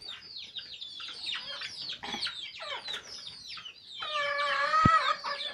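Chickens calling: many short, high chirping calls that fall in pitch, one after another. About four seconds in, one longer drawn-out call stands out as the loudest sound.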